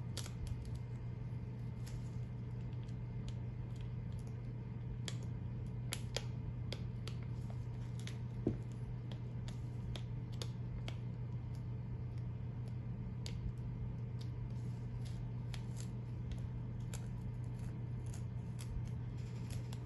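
Light, irregular clicks and crackles of clear stencil transfer paper being peeled back from vinyl and handled, with an X-Acto knife pressing the stencil down, over a steady low hum.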